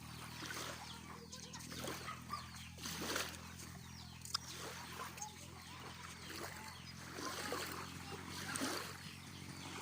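Water splashing irregularly over a steady low hum.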